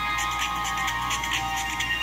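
A built-in LG Optimus F7 ringtone playing through the phone's small speaker: an electronic melody of held notes over a fast ticking beat, with little bass.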